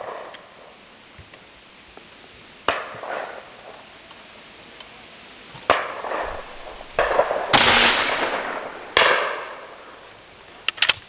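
Swiss K31 straight-pull rifle in 7.5×55mm firing one shot about seven and a half seconds in, the loudest sound, with a ringing tail. The bolt is then worked with sharp metallic clacks. Two fainter sharp cracks come earlier.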